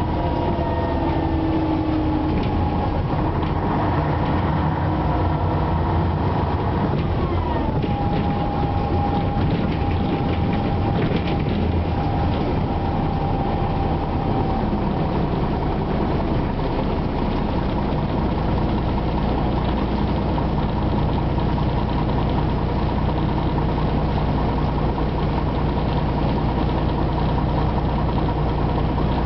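Ikarus 260 diesel city bus heard from inside the passenger cabin while driving: steady low engine drone with a transmission whine. The whine falls in pitch early on, drops sharply about seven seconds in, then holds before fading about halfway through, leaving a steadier low engine sound.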